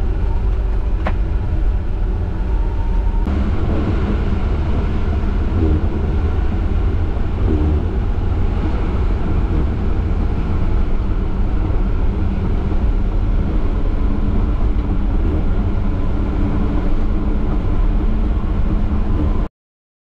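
Caterpillar D7 bulldozer's diesel engine running with a steady low rumble, heard from inside the cab, with one short click about a second in. The sound cuts off abruptly near the end.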